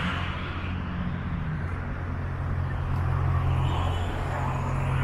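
An SUV driving slowly past at close range: a steady low engine hum with tyre rush that grows louder as it draws alongside near the end.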